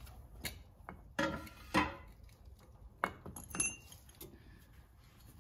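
A handful of light metallic clinks and knocks from metal parts being handled, one of them ringing briefly about three and a half seconds in.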